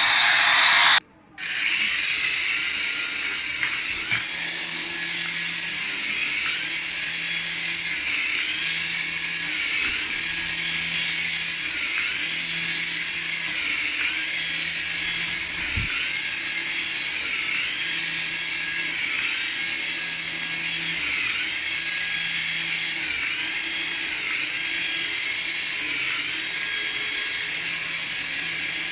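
Battery-powered toy's small motor and gears running steadily, with a pattern that repeats about every second.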